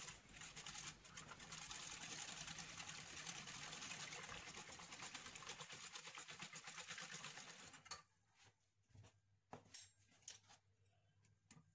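Balloon whisk beating a thin liquid mixture in a stainless steel bowl: a faint, fast, steady whisking with sloshing that stops about eight seconds in, followed by a few light clicks.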